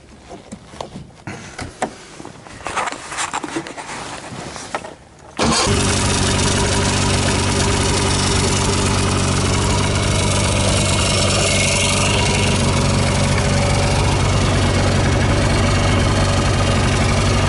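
Polaris Trail Touring snowmobile's two-cylinder two-stroke engine starting. For about five seconds there are scattered clicks and knocks, then the engine suddenly catches and settles into a steady idle.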